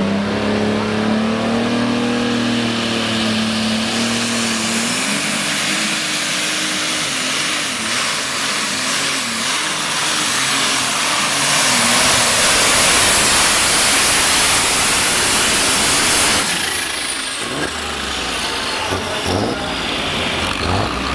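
Super Stock/Pro Stock class pulling tractor's engine at full throttle, dragging the weight sled. The pitch climbs at launch, wavers mid-pull, and the sound is loudest near the end of the run. It then drops sharply about sixteen seconds in as the pull ends, leaving a quieter engine running.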